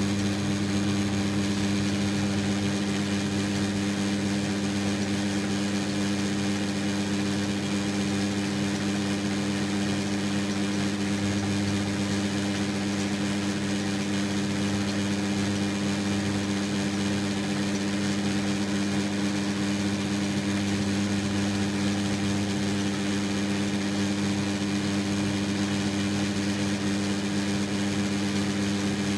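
Metal lathe running at a steady speed, its chuck turning while a boring bar opens up the bore of a pressure-switch fitting to the root diameter of a 1/4 BSP thread. A steady hum that does not change.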